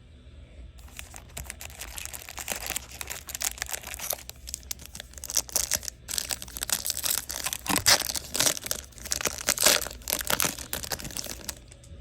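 Foil trading-card pack wrapper being crinkled and torn by hand, a dense run of irregular crackles that starts about a second in and stops just before the end.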